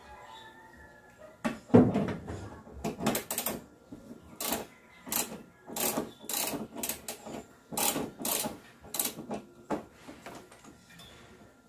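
Hand tools and parts being worked on in an engine bay while the air cleaner housing is unbolted and pulled free: a loud knock about two seconds in, then a run of irregular sharp clicks and knocks, one or two a second, easing off near the end.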